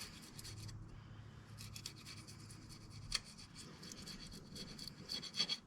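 Faint scratching and rubbing of a hand tool or pad on a metal engine surface as it is cleaned, with small ticks and one sharper tick about three seconds in.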